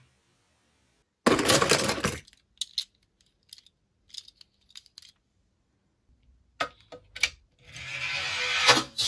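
A small die-cast toy car rattling and clattering over a hard surface. A rush of rolling noise comes about a second in, then scattered light clicks as it settles, and a second rolling rush builds near the end.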